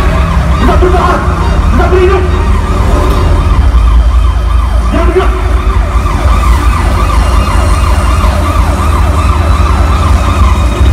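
Siren sound effect over the show's sound system, a rapidly repeating falling wail, over a steady deep rumble.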